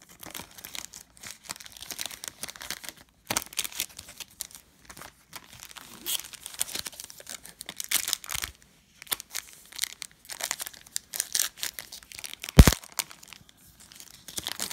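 Foil trading-card pack wrappers crinkling and tearing as a pack is handled and ripped open, in irregular crackly spurts. Near the end there is a single sharp knock, the loudest sound.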